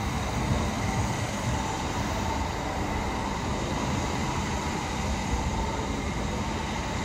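Steady mechanical hum and hiss of running machinery, with a faint high whine over a low rumble.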